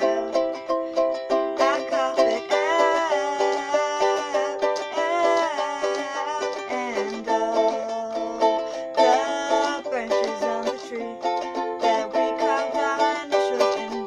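Ukulele strummed in steady chords, with a person singing along over it at times.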